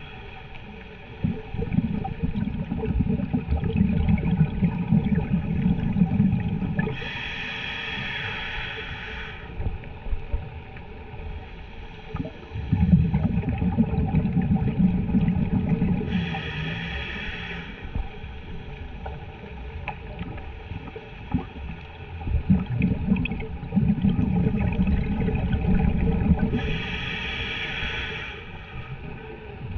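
Scuba diver breathing through a regulator underwater: three slow breaths about ten seconds apart. Each breath is a few seconds of low bubbling rumble followed by a short hiss.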